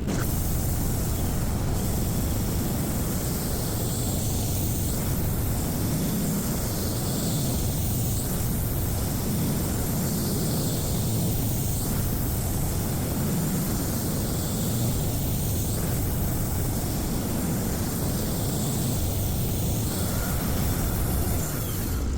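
Sawmill running steadily under load, its engine and blade cutting through a walnut log.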